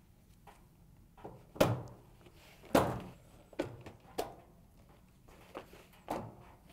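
Plastic locking tabs of a Whirlpool dryer's control console being lifted and released from the top panel: a series of about six sharp clicks and knocks, the two loudest about one and a half and nearly three seconds in.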